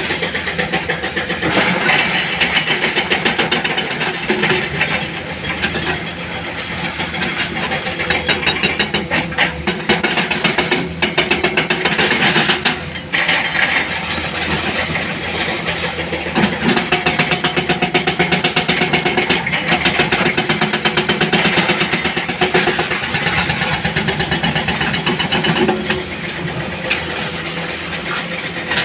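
Heavy diesel engine of earth-moving machinery running with a fast, even firing pulse, swelling and easing slightly as it works.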